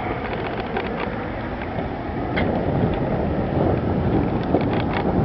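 Wind buffeting the microphone outdoors: a steady, rumbling noise with a few faint clicks.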